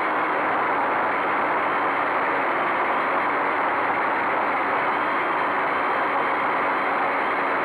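Quadcopter's electric motors and propellers buzzing steadily, heard from the camera mounted on the aircraft.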